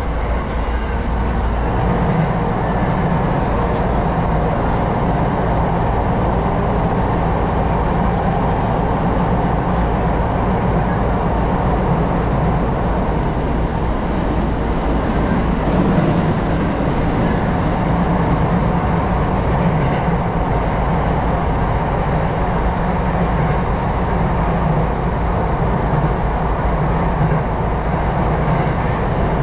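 Sotetsu 10000 series electric train running at steady speed, heard from inside the passenger car: a continuous low rumble of the wheels and running gear on the track.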